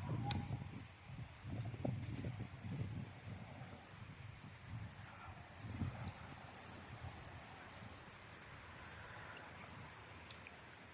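Wind buffeting the microphone in low gusty rumbles, easing off in the second half, under faint short high chirps that repeat irregularly.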